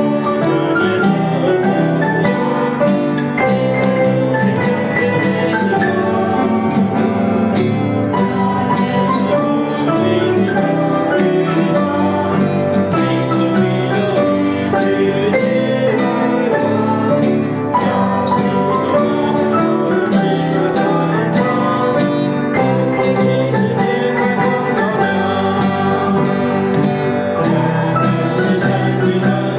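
Acoustic guitar and upright piano playing a worship song together, a steady run of chords and melody without a break.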